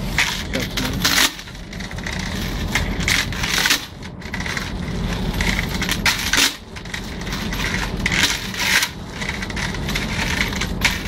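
Thin metal chain rattling and clinking against the steel rim of a tank hatch as it is paid out and drawn back up by hand, in repeated short jingles. A steady low hum runs underneath.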